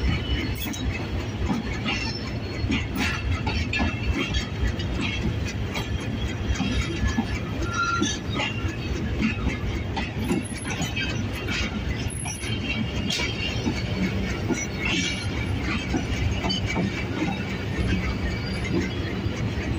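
Arriving passenger train's coaches rolling slowly past: a steady rumble of wheels on rail with repeated clacks over the rail joints and short wheel squeals now and then.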